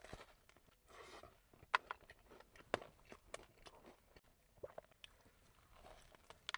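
Close-up eating sounds: biting into and chewing a churro doughnut, soft mouth noises with scattered short, sharp clicks.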